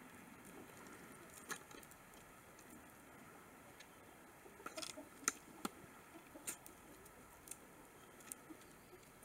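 Faint, scattered sharp taps and clicks from hens moving into a coop over concrete and wooden steps, with a short cluster about five seconds in. There is no clucking.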